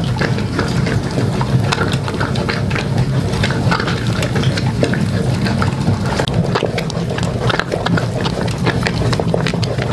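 A long wooden stick stirring a thick, steaming flour mixture in an aluminium pot, with frequent small knocks and scrapes of the stick against the pot over a steady low rumble.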